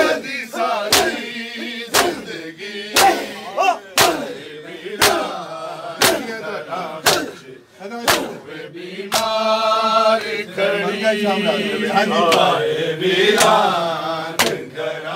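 A crowd of men chanting a noha in unison while beating their chests together in matam, with sharp slaps falling about once a second over the chant. About nine seconds in, a lead voice holds a long sung note.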